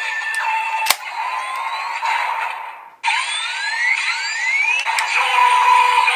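Electronic sound effects from a DX ValenBuster toy transformation gun: its looping standby tones, a sharp click about a second in, then after a brief drop at about three seconds a burst of rising electronic sweeps that settles into a new steady electronic loop.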